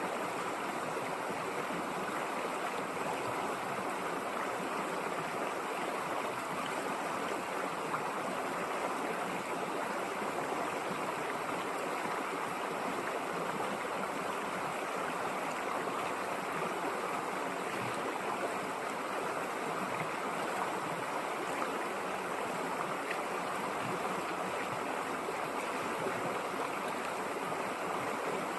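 River water rushing and splashing steadily over its bed, an even rushing sound with no change in level.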